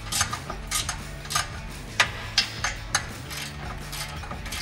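A wrench turning a nut on an exhaust pipe flange stud, making irregular sharp metal clicks and clinks. The loudest clink comes about two seconds in.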